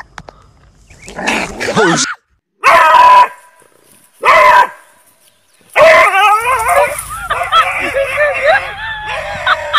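Puppy barking: two loud barks about a second and a half apart, then several seconds of continuous excited barking and yelping.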